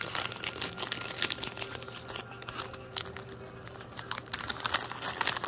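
Plastic cracker wrapper crinkling as it is handled: a fast, irregular run of small crackles.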